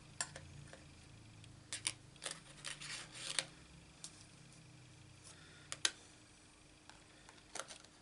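Thin metal cutting dies clinking and tapping as they are handled and sorted, in scattered small clicks with a quicker cluster about two to three and a half seconds in.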